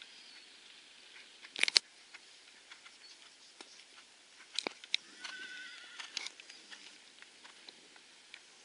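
Quiet outdoor background with two sharp knocks about a second and a half in and another near the middle. About five seconds in, a horse whinnies briefly with a wavering pitch.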